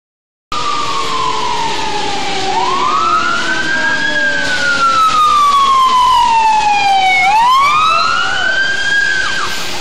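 Emergency vehicle siren wailing, its pitch sliding slowly down, then up, then down and up again in cycles of a few seconds, over a steady noisy background. The sound starts about half a second in.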